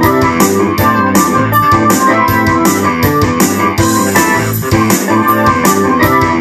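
Ensoniq SD-1 synthesizer keyboard played in a rock style, chords and lines, over a steady drum beat of about four strikes a second.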